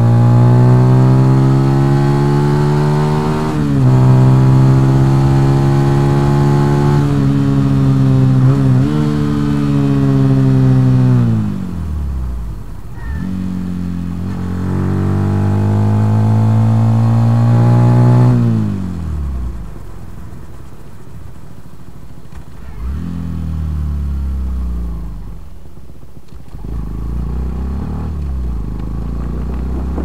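Benelli TNT 125's single-cylinder four-stroke engine running under way, heard from the rider's seat. It holds steady revs with two quick gear-shift breaks at first, then the revs fall away off the throttle, climb again, fall again past the middle, and stay low with one short rise near the end.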